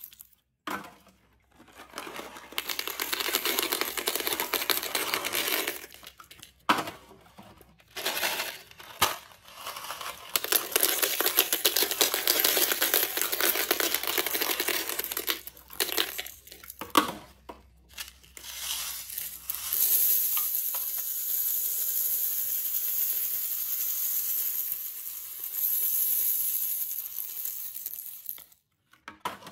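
Small hard candies, Nerds and Mike and Ike, poured from cardboard boxes into a toilet bowl, pattering down over plastic eggs and candy. It comes in several pours of a few seconds each, with short pauses between boxes.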